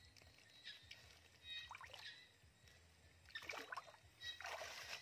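Soft water splashes and trickles as a fishing net is worked chest-deep in a river: a brief splash about two seconds in, then several more in the last two seconds. Faint repeated chirps sound in the background.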